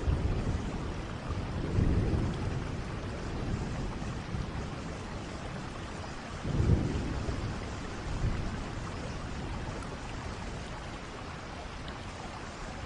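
Steady rain with low rolls of thunder. One rumble swells about two seconds in, a stronger one comes about halfway through, and a weaker one follows soon after.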